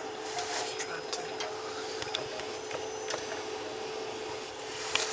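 Handling noise as a video camera is set down and shifted into place on patio furniture: rubbing, scraping and scattered clicks, with a louder knock near the end. A steady hum runs behind it.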